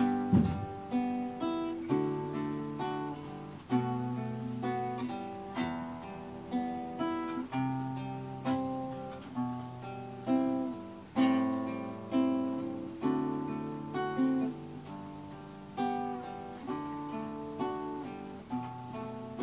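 Background instrumental music of plucked strings: single notes and chords picked one after another, each ringing out and fading.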